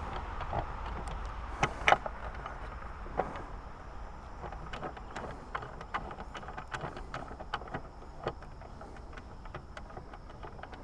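Scattered light clicks and taps from handling trolling-motor parts and covers, irregular, with two louder clicks about two seconds in, over a faint steady high-pitched whine.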